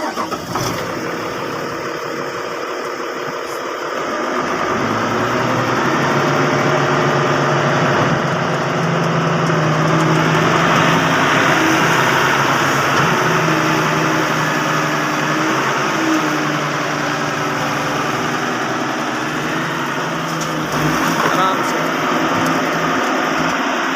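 Excavator's diesel engine running steadily, getting louder about four seconds in as it works under more load.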